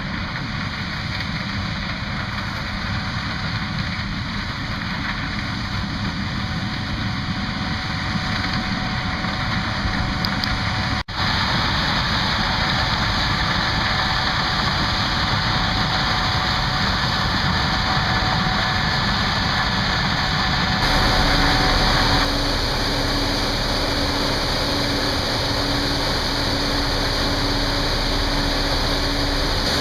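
Gleaner S78 combine running in a corn harvest: steady, loud machine noise of the engine and threshing system with faint steady whines. The sound cuts out for an instant about a third of the way in, comes back louder, and shifts abruptly again past the middle.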